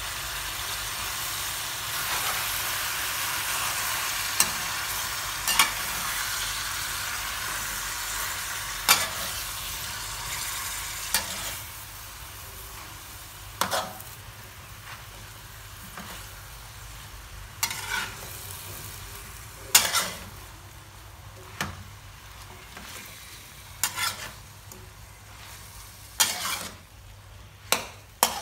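Leafy greens and pork sizzling in a wok while a metal spatula stirs them, knocking against the wok every couple of seconds. The sizzle is strongest for the first dozen seconds, then dies down.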